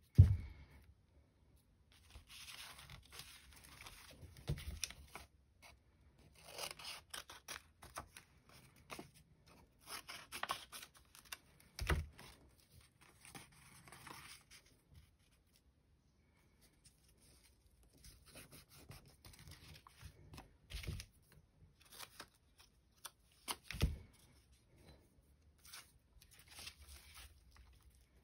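Collage paper being handled, torn and snipped with scissors: crisp rustling and crackling in several stretches of a few seconds each, with quiet gaps between. A few sharp knocks, the loudest right at the start.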